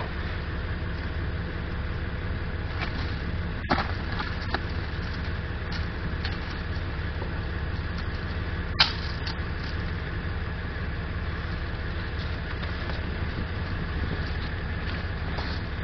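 Small Honda petrol engine of a power pack running steadily. Two sharp metal clanks come from the welding gear being handled, one about four seconds in and a louder one about nine seconds in.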